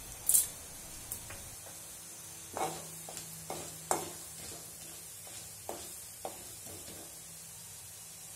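Chana dal dropped into hot oil in an aluminium kadai with a short sharp sizzle, then a wooden spatula stirring the lentils, knocking and scraping against the pan about seven times over a faint steady sizzle of oil.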